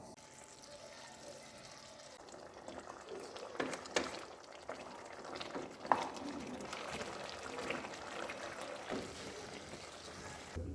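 Liquid sounds from a pot of chicken and yam curry, a steady crackly bubbling with scattered light clicks and a sharper knock about six seconds in.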